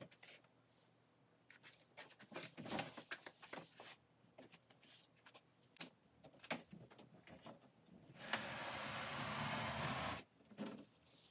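Scattered light knocks and clicks as a large wooden IKEA PAX wardrobe-frame display case is handled. About eight seconds in comes about two seconds of steady scraping as the case is tipped upright on the carpet, then a couple more knocks.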